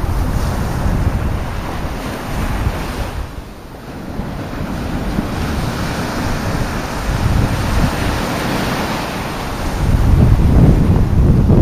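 Wind buffeting the microphone over the steady wash of surf, easing briefly a few seconds in and growing louder near the end.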